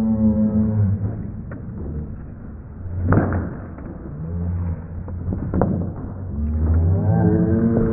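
Background music of long, held low notes, with a few sharp swooshing hits about three seconds in and again near the middle.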